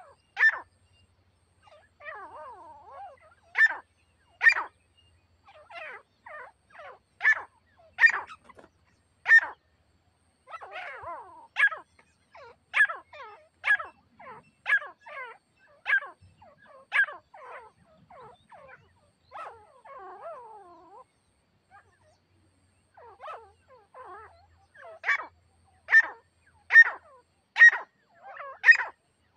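Grey francolins (Indian grey partridges) calling: runs of short, sharp, high calls about one a second, with softer scratchy calls between them and a short pause past the middle.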